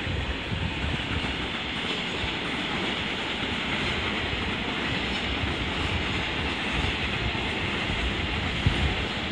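Container freight train rolling past, with a steady noise of its wheels on the rails.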